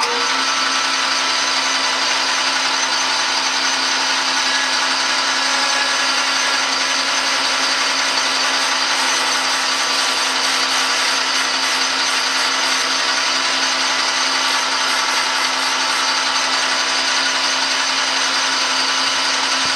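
Metal lathe running at a steady speed with a steady mechanical whine, turning a knurled brass bar while a cutting tool cuts a narrow groove into it.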